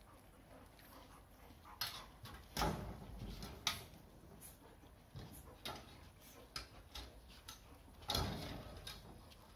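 Retrievers play-wrestling: scattered sharp clicks and scuffles, with two heavier thumps, one about two and a half seconds in and one near the end.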